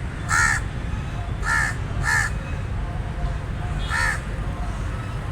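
Raven calling with short, harsh caws: one about half a second in, two close together around the middle, and one near four seconds. A steady low rumble sits underneath.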